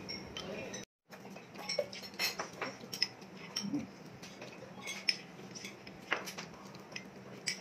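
Scattered light clinks and taps of a spoon and other tableware against bowls and plates during a meal. The sound cuts out completely for a moment about a second in.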